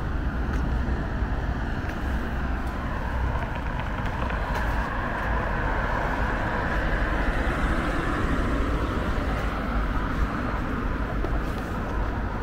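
City street traffic: a car passing, its sound swelling and fading a little past the middle, over a steady low rumble.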